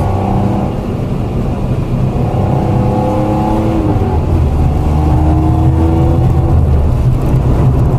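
BMW M52B28 2.8-litre straight-six engine revving under driving, its pitch rising and falling several times.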